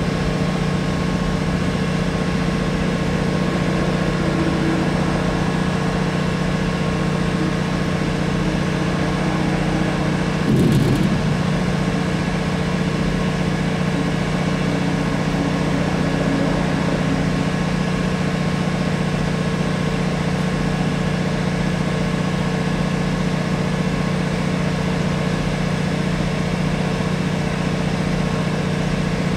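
Diesel railcar running: a steady drone with a strong low hum and a few steady tones over it. A short louder bump comes about ten and a half seconds in.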